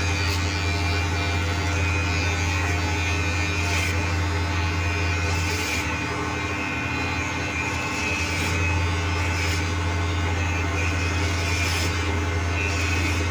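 Electric hair clippers running with a steady buzz, briefly a little softer in the middle.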